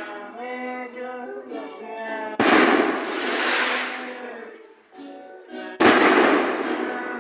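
Music with held pitched notes, broken twice, about two and a half seconds in and again near the end, by a sudden loud burst of noise that fades over a second or so.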